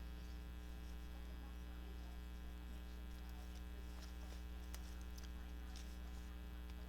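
Steady low electrical mains hum, with a few faint light clicks from handling near the middle.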